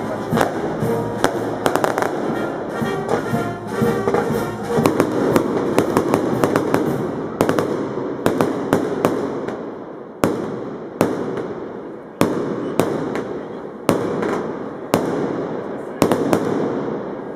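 Fireworks going off: a rapid string of firecracker bangs at first, then from about halfway separate loud bangs roughly once a second, each with a fading echo.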